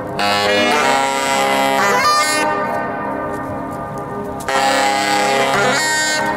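Saxophones playing long held notes, several tones sounding at once, with each note held for a second or two before a new one enters.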